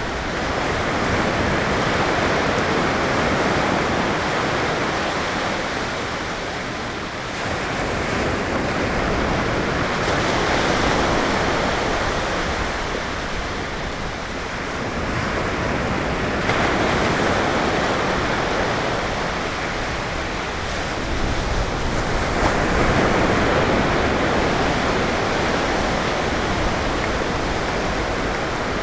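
Ocean surf: waves breaking on a sandy beach one after another, the wash swelling and easing about every six or seven seconds.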